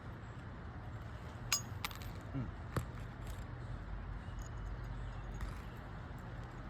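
A few light metallic clicks from roofing hand tools being handled, three of them between about one and a half and three seconds in, over a steady low rumble.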